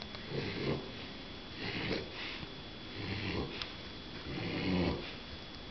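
A mini bulldog puppy snoring in its sleep, a low snore with a hissy edge on each breath, about one every second and a half.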